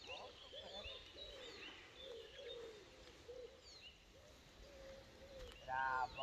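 Faint songbirds chirping and singing, with repeated short falling chirps and lower wavering calls underneath. Just before the end a brief, louder voice cuts in.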